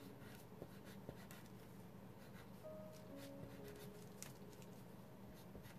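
Faint scratching of a colored pencil sketching on tracing paper, in short, irregular strokes.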